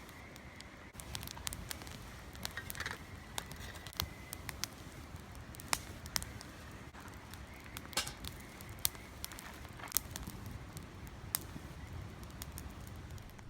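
Wood fire crackling in a fire pit: irregular sharp pops and snaps, a few a second, over a steady low noise.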